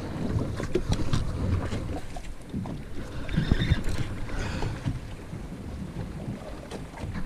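Wind buffeting the microphone over the sound of water against the hull of a small boat at sea, with a few light handling knocks.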